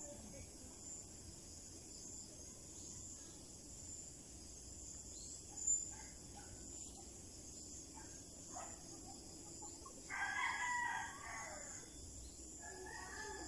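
Rooster crowing: one long crow about ten seconds in that drops in pitch at its end, then a shorter crow near the end. A steady high-pitched insect drone sits underneath, and a single short sharp sound about halfway through is the loudest moment.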